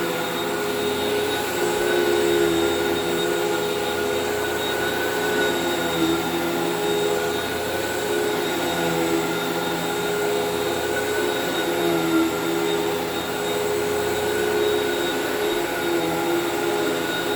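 Hoover WindTunnel vacuum cleaner running steadily, a constant motor hum and whine with a rush of air.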